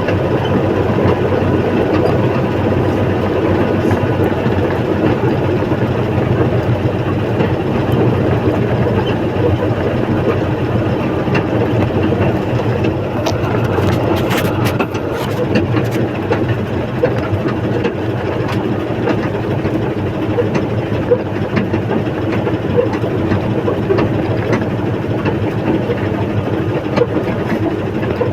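Backhoe's heavy diesel engine running steadily.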